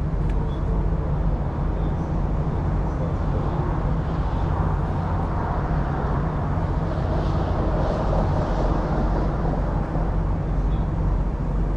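A heavy truck's diesel engine idling steadily, a low, even hum, with a wider rush of noise swelling a little in the middle.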